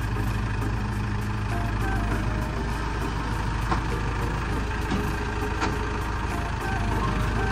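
A heavy engine idling steadily with a constant low hum, and a couple of light clicks over it.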